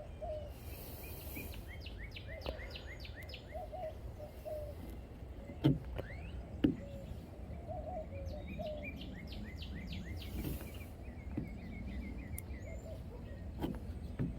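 Songbirds chirping in quick runs of short falling notes, several runs in a row, over a steady low hum. Two sharp clicks come about a second apart near the middle.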